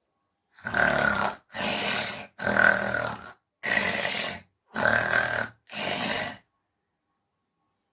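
A boy imitating a lion's roar with his voice: six rough, grunting roars in a row, each under a second long.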